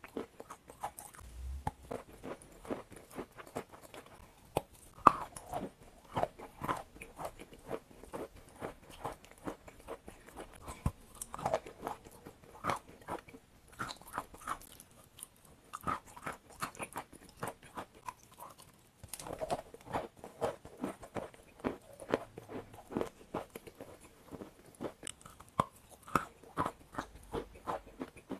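A block of white chalk being bitten and chewed close to a clip-on microphone: dense clusters of dry, sharp crunches, with a brief pause about two-thirds of the way through.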